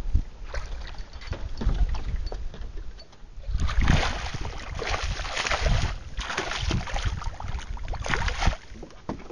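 A redfish (red drum) thrashing and splashing at the water's surface beside the boat as it is fought on the line. The splashes come in repeated bursts starting about four seconds in, loudest at the start, and die away near the end.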